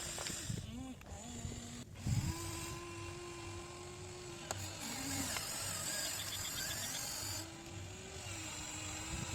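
Whine of an RC excavator's electric motor and hydraulic pump, its pitch stepping up and down and holding as the controls are worked.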